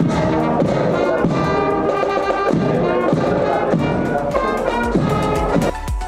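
Marching band playing in the street: trumpets and saxophones carry a tune over the beat of bass drums and marching snare drums. The band's sound cuts off near the end.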